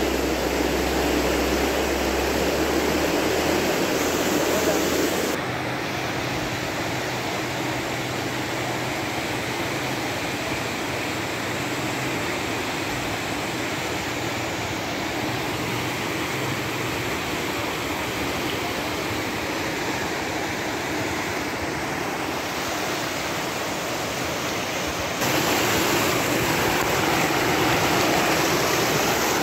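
Muddy floodwater rushing down a river channel in a steady rush. It turns a little quieter about five seconds in and louder again near the end.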